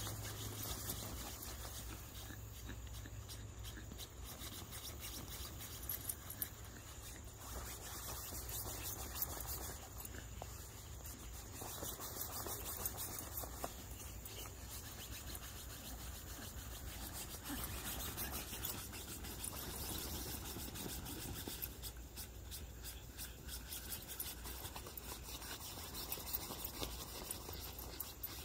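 Light rustling and scratching of a nylon pop-up ball pit tent and its plastic balls as two Shih Tzu puppies scramble about in it, with a few small knocks.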